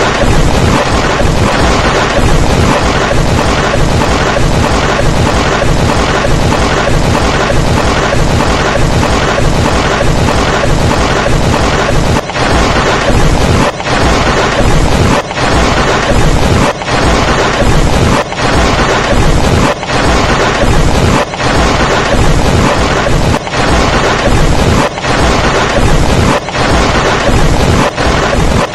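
Extremely loud, heavily distorted music that comes through as a dense wall of noise with a steady pulse. From about halfway through it drops out briefly about every one and a half seconds.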